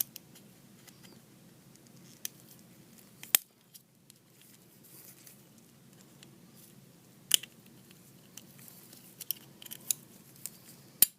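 Sharp, scattered metallic clicks and taps from a 1911 pistol slide and its small steel parts, as the firing pin is pressed in and the firing pin stop (back plate) is slid out. A few separate clicks come first, then a quicker run of small clicks near the end.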